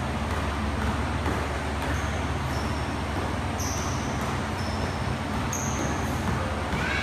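Steady rumbling background noise in a large gym. Faint knocks about twice a second come from a basketball being dribbled on the court, with a few short high squeaks.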